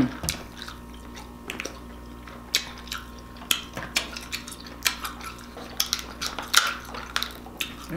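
Kitchen scissors cutting through cooked king crab leg shell: a run of irregular sharp clicks and cracks, coming faster in the second half.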